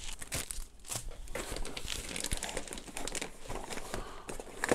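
Clear plastic packaging bag crinkling as it is handled, an irregular run of crackles and rustles.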